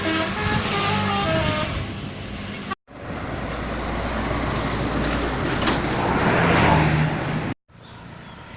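Indonesian telolet bus horn finishing a melody of stepped notes and fading over the first second or so. After a sudden cut, a bus engine and road noise grow louder, then cut off abruptly to quieter traffic noise near the end.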